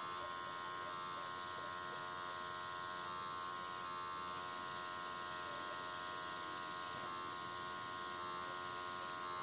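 Small battery-powered airbrush compressor (LMH190801-05 kit) running steadily with an electric buzz. The hiss of air through the airbrush swells and eases a few times as the trigger is worked, spraying acetone through it to clean it.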